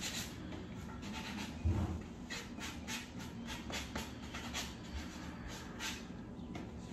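Wooden arbor posts being handled and brushed with paint: irregular short scratchy strokes and light knocks, with one dull thump of wood about a second and a half in.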